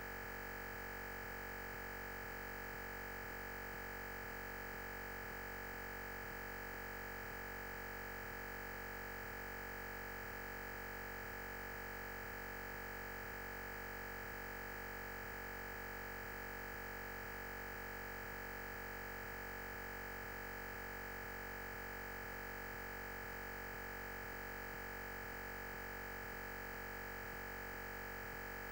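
Steady electrical hiss with a constant high-pitched whine from the recording chain, unchanging throughout; no speech or other sound.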